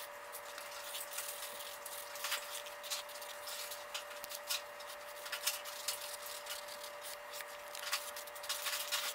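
Felt-tip marker scratching on notebook paper in many short, irregular strokes as a drawing is shaded in, over a steady faint hum.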